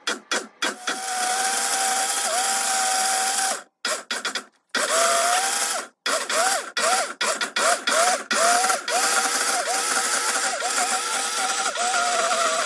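Cuisinart countertop blender motor pureeing frozen banana chunks: a few quick pulses, then running in bursts broken by two short stops, then steadily. Its whine dips in pitch again and again as the thick frozen mixture loads the blades.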